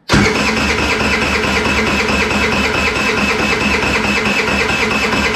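Ice Bear scooter engine being cranked over by its electric starter, a steady rhythmic churn that starts abruptly, without the engine firing. It is a fuel-delivery test: the line is off at the filter outlet to see how much fuel the vacuum-diaphragm fuel pump sends while cranking.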